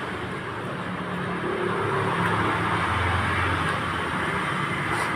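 Road traffic noise: a steady hum of passing engines, swelling slightly about three seconds in.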